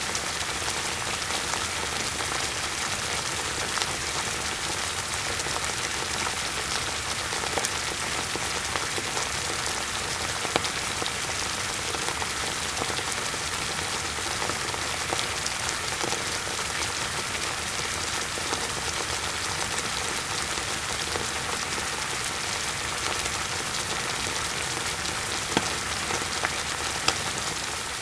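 Food frying in hot oil: a steady sizzle with many scattered small crackles and pops. It fades in at the start and fades out at the end.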